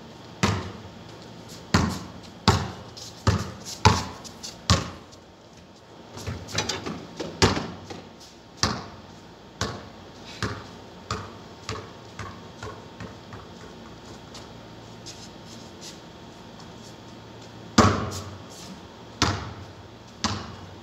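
A basketball bouncing on a concrete court, a string of sharp bounces. The loudest come in the first five seconds; a run of softer bounces follows, coming closer together between about nine and fourteen seconds. After a short lull, three more loud bounces sound near the end.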